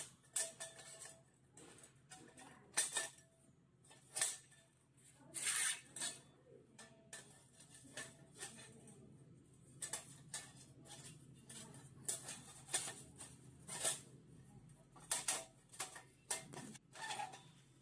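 Laser-cut 3 mm mild-steel plates of a flat-pack barbecue stove clinking and scraping against each other as they are handled and slotted together, in irregular sharp clanks.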